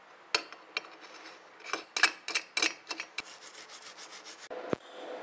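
Metal parts clicking and scraping as a nut, bolt and clamp are set in place on a steel block. About four and a half seconds in, a sharp crack and then a steady hiss and hum start: the TIG welding arc striking and burning on the nut.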